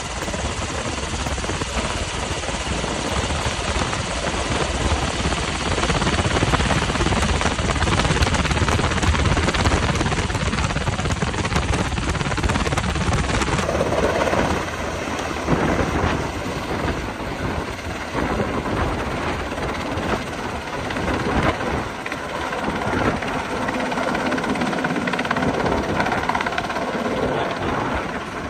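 UH-60 Black Hawk helicopter, its rotor and turbine engines heard at close range from inside the cabin as it hovers low. About fourteen seconds in, the sound switches to the same type of helicopter heard from the ground as it hovers with a water bucket slung below, a less even rotor noise.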